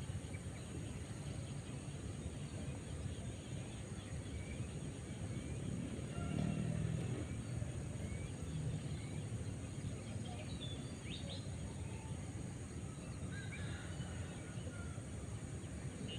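Outdoor ambience: a steady low rumble with short bird chirps scattered throughout, the rumble swelling briefly about six seconds in.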